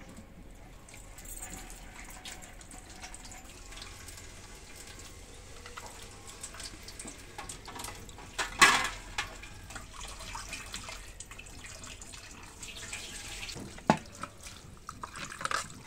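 Tap water running into a steel sink and splashing over vegetables and cabbage leaves being rinsed by hand in a clay bowl. A sharp loud knock about halfway through, and a smaller one near the end.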